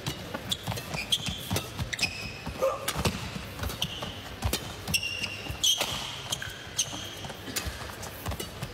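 Badminton rally: sharp racket hits on the shuttlecock and quick footfalls on the court, with short high squeaks of court shoes on the mat.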